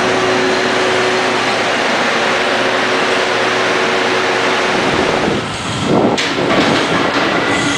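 An electric commuter train running alongside a station platform and slowing, with a steady rumble and hum. About five seconds in this gives way to the loud rush of a KTX-1 high-speed train coming through at speed, with a sharp click soon after it begins.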